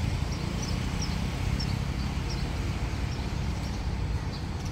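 Engine of a railway track-maintenance machine running steadily as it creeps along the track, with short bird chirps scattered over it.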